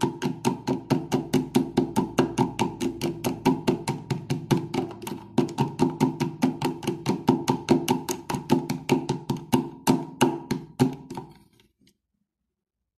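Metal spoon stirring aspirin tablets in a plastic tub, clicking against the sides and tablets about five times a second in an even rhythm, then stopping near the end.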